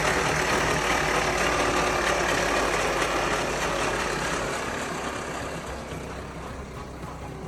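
Motor vehicle engine running: a dense, steady mechanical noise with a low hum, fading down over the second half.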